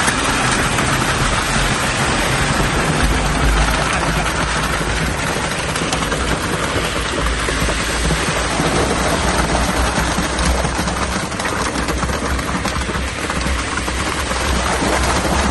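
Wet concrete pouring in a steady stream down into a drilled bell-footing hole around a rebar cage, a continuous rushing, rain-like pattering. A low, steady engine sound runs beneath it.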